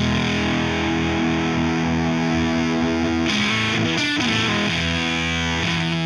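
Electric guitar played through a Veri-Tone Beehive pedal, switched on, giving distorted chords that ring out. About three seconds in, a new, brighter strum comes in.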